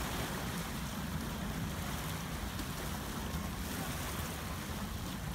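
Steady wind rumbling on the microphone, with waves washing against a rocky shoreline.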